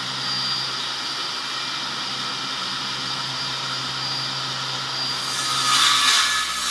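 Bosch cordless circular saw running with a steady motor whine; about five seconds in, the blade bites into the board and a louder, harsher cutting noise comes in.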